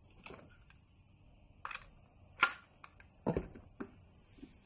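Irregular sharp clicks and knocks, about five of them, from the handle and latch of a smart door lock being worked. The brightest click comes about two and a half seconds in and a deeper knock just after.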